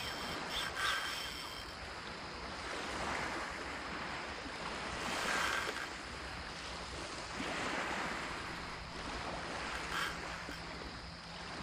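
Calm sea water washing and lapping in slow swells, with some wind on the microphone. A few brief clicks near the start and again about ten seconds in.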